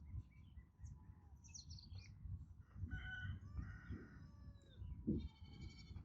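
A rooster crowing faintly, one drawn-out call starting about three seconds in, with small birds chirping over a steady low background noise.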